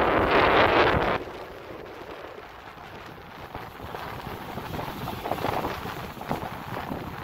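Wind on the microphone over breaking surf, loud for about the first second, then dropping suddenly to a quieter, steady wash of surf.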